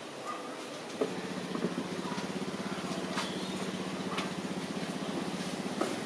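A small engine starts running about a second in and keeps going steadily with a low, rapidly pulsing note. A few sharp clicks and rattles of the wire cage come as a macaque climbs its bars.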